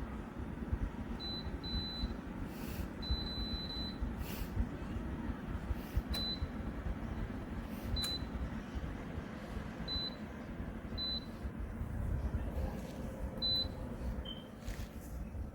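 Short high electronic beeps, about nine of them at irregular intervals and a few in quick runs, typical of a space heater's control panel or remote answering button presses. A steady low rumbling noise runs underneath, with a few faint clicks.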